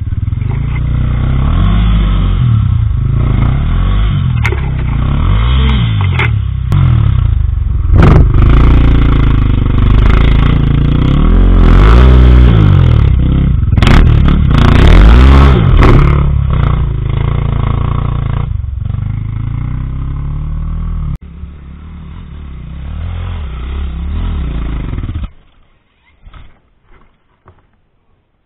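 Husqvarna TE300 two-stroke enduro engine revving hard and repeatedly on a rocky climb, its pitch rising and falling, with clattering knocks in the middle. About 21 seconds in it drops to quieter running, and it cuts off suddenly about 25 seconds in.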